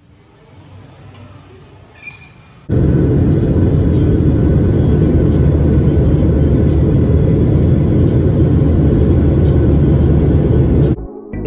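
Loud, steady roar of a passenger jet's cabin in flight, heard from a window seat over the wing; it starts abruptly about three seconds in and cuts off near the end.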